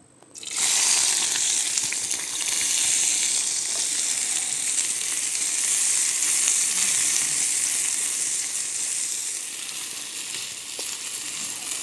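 Chopped onions frying in hot desi ghee in a frying pan: a loud, steady sizzle that starts about half a second in as the onions hit the fat, and eases off slightly near the end as they are stirred with a wooden spatula.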